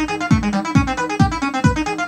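Roland TB-03 bass synthesizer playing a repeating acid bass pattern over a steady electronic kick drum, about two kicks a second.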